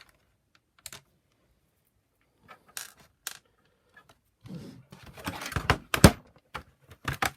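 Plastic housing of a Shark IZ320UK power nozzle being handled as its top cover is lifted off: a few separate clicks, then a burst of clattering with one loud sharp click about six seconds in.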